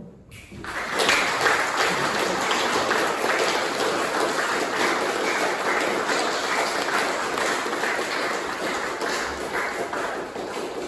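Audience applauding, starting about half a second in and holding steady.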